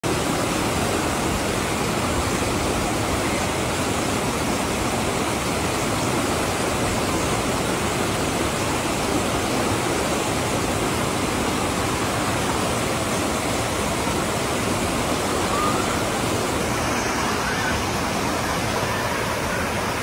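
River water rushing steadily over rocks in shallow whitewater rapids.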